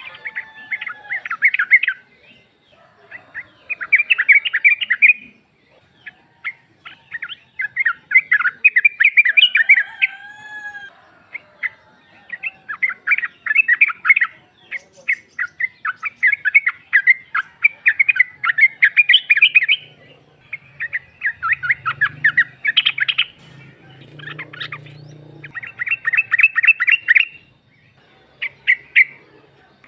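Female yellow-vented bulbul (trucuk) calling in repeated bursts of rapid chattering notes, each burst one to two seconds long with short pauses between, the call used to draw an answer from a male.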